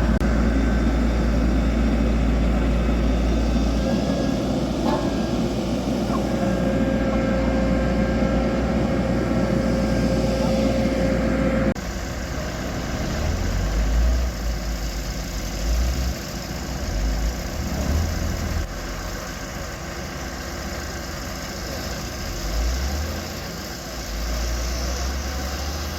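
Heavy road-work machinery with diesel engines running. About twelve seconds in, the sound cuts abruptly to a quieter engine whose low rumble rises and falls.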